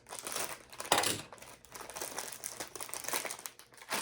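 Plastic snack wrapper crinkling as it is handled and torn open, in an irregular run of crackles with the loudest about a second in.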